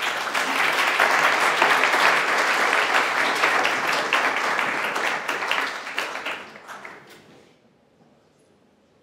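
Audience applauding at the end of a talk. The clapping starts abruptly, stays dense for about six seconds, then dies away.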